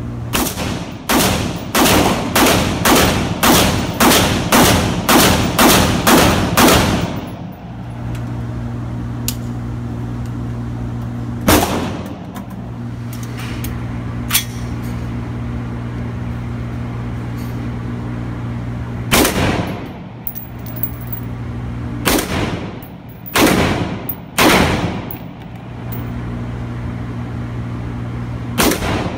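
AR-15 rifle shots echoing in an indoor range: a quick string of about a dozen shots, two a second, then single shots several seconds apart. A steady low hum runs underneath.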